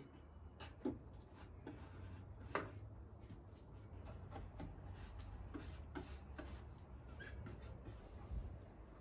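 Paintbrush dabbing and stroking polyester resin into chopped strand mat on a wooden panel: faint, irregular soft taps and rubs.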